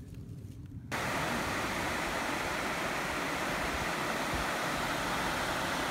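Steady rush of river water spilling over low rock ledges in several small cascades. It comes in abruptly about a second in, after a quieter start.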